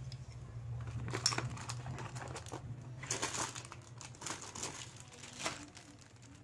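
Jewellery and its packaging being handled off camera: a run of rustles and light clicks, the sharpest about a second in and near the end, over a low hum that fades away.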